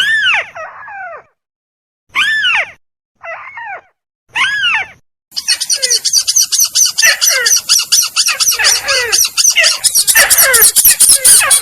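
Bird-lure recording of crake (tikusan) calls. Four separate arched, falling calls come in the first five seconds. Then a dense overlapping chorus begins: a rapid high-pitched chatter over repeated falling calls, which stops suddenly near the end.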